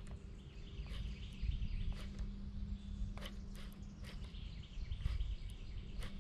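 Baitcasting reel being cranked steadily to retrieve a glide bait, over a steady low hum, with scattered short clicks.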